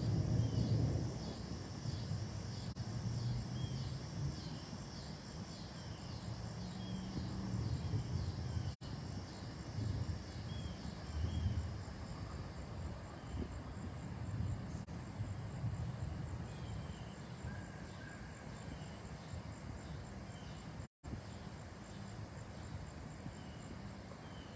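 Storm wind gusting across the microphone, a low rumble that swells and fades, while insects keep up a faint, even rhythm of high chirps. The audio cuts out very briefly twice.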